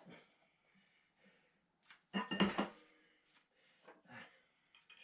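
Metal parts and hand tools clinking and knocking as they are handled, in a few short bursts; the loudest is a cluster of ringing metallic clinks about two seconds in.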